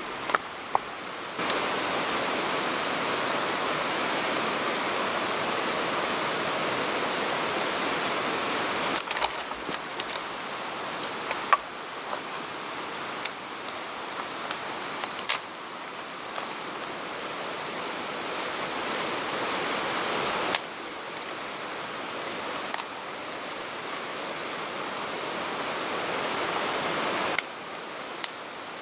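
Steady rushing water noise with scattered sharp clicks and taps. Its level jumps up and down abruptly several times.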